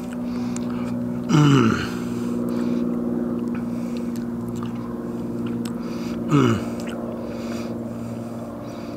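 Someone eating, with two falling 'mmm' hums of enjoyment, one about a second in and another about six seconds in. Under them runs a steady low motor hum.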